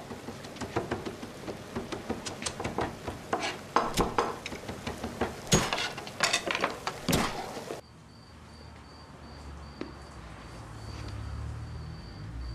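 A quick, irregular run of sharp clicks and knocks. About eight seconds in, the sound cuts to a quieter stretch: an even, high chirp pulsing about twice a second over a low hum.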